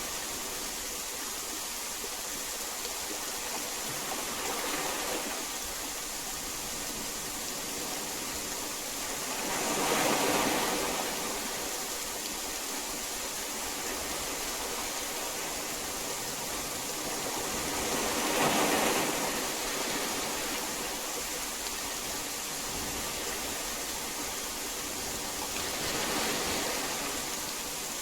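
Steady heavy rain, an even rushing hiss that swells a little louder several times, most strongly about ten seconds in and again near two-thirds through.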